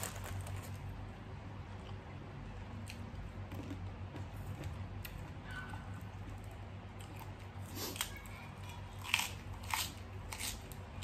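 Close-miked chewing and crunching of food, with a few sharp crunchy bites in the last few seconds as a fresh lettuce leaf is bitten, over a low steady hum.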